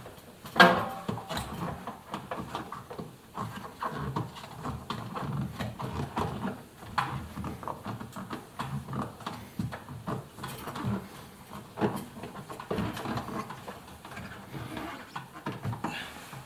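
Handling noises as a rubber door seal is worked onto the tub opening of an Indesit washing machine: rubbing of rubber against the machine's front, with irregular knocks and clicks, a sharp knock about half a second in.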